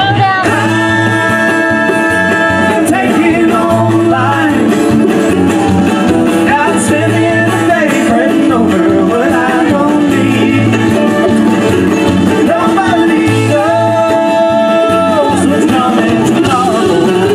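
Live band playing: a man singing over strummed acoustic guitar and drums, holding a long note near the start and again about two-thirds of the way through.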